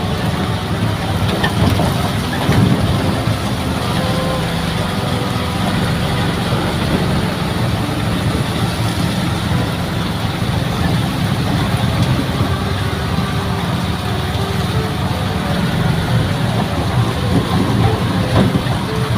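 Bemo, a small three-wheeled motorised minibus, with its engine running steadily in a low drone while driving along.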